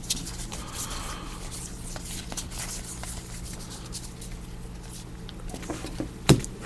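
Trading cards being handled and flipped through a stack, with light rustling and small clicks, and one sharp tap about six seconds in. A steady low hum runs underneath.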